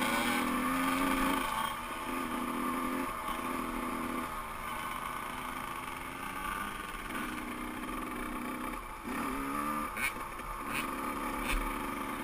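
Suzuki RM85 85cc two-stroke motocross engine running at low speed, the throttle opening and easing off in stretches of a second or two. A few sharp clicks come near the end.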